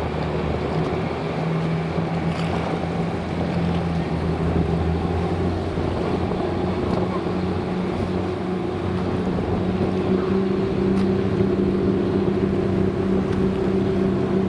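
Engine of the small ferry boat Wakato-maru No. 18 running steadily, its pitch stepping up a little about six seconds in, with wash and wind noise around it.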